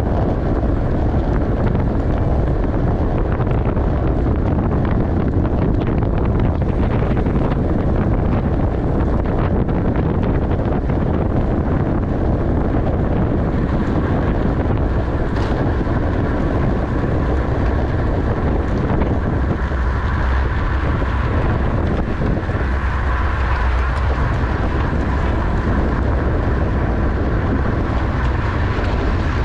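Steady, loud wind noise buffeting the microphone of a camera riding on a racing bicycle at criterium speed.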